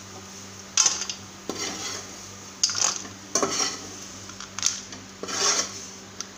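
Steel spatula scraping and knocking against a metal kadhai as fried stuffing masala is scooped out of it into a steel plate: a series of irregular scrapes and clanks.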